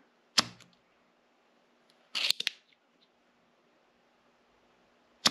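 Spring-loaded solder sucker (desoldering pump) clicking as its plunger is cocked and fired to pull molten solder out of circuit-board pad holes. There is a sharp snap about half a second in, a quick cluster of clicks around two seconds in, and another sharp snap at the very end.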